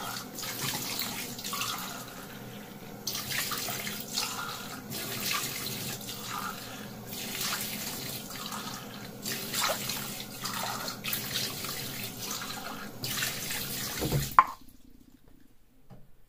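Bathroom faucet running into a sink, the stream's sound swelling and dipping as hands rub and rinse under it. About fourteen seconds in there is a sharp knock and the water stops at once: the tap is shut off.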